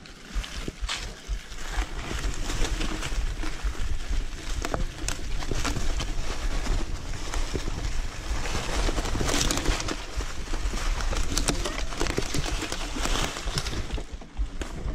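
Steady rumble and hiss of a ride along a rough off-road dirt track, with frequent knocks and rattles from the bumpy ground.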